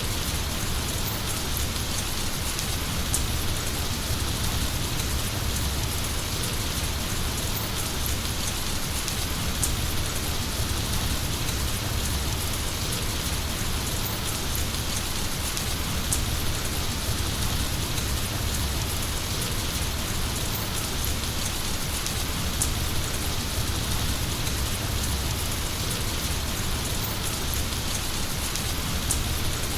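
Heavy rain falling steadily, with scattered sharp drop ticks over a low rumble.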